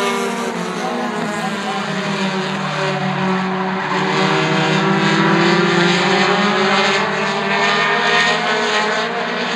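A pack of four-cylinder short-track race cars running around the oval, several engines at once, their pitches slowly rising and falling.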